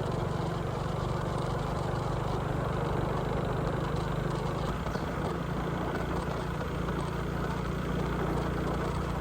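An engine running steadily at an even speed, with a low hum and a rough, noisy rush, cut in and out abruptly.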